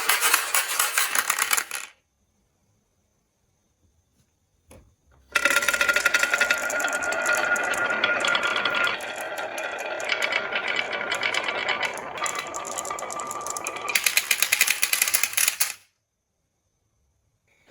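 Marbles rolling and clattering fast down a marble run track, a dense run of rapid clicks. It stops about two seconds in, and after a few seconds of silence a second, longer run of clattering starts and goes on for about ten seconds before stopping.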